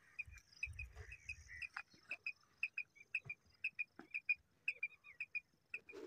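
Faint, short high quail chirps, mostly in pairs, repeating irregularly a few times a second, with a low rumble in the first second and a half.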